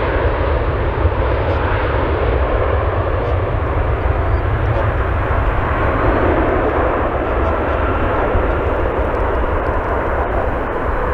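Boeing 777-9's twin GE9X turbofans at takeoff thrust as the jet accelerates down the runway: a steady, loud jet noise with a strong low rumble.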